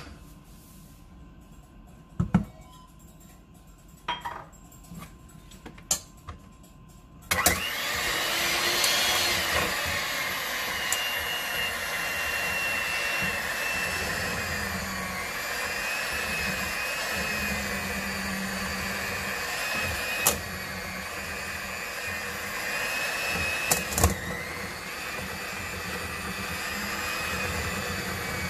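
A few sharp knocks and clicks, then about seven seconds in an electric hand mixer starts and runs steadily with a whine, its beaters working pieces of butter in a stainless steel bowl. The beaters clink sharply against the bowl a couple of times.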